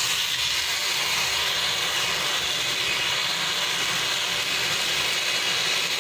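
Leftover-rice and gram-flour batter sizzling steadily in hot oil on a tawa as it is spooned on and spread. The sizzle starts just as the batter hits the pan and holds even throughout.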